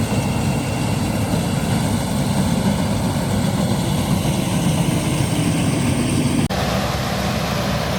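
Combine harvester's diesel engine running steadily, with a sudden shift in the sound about six and a half seconds in.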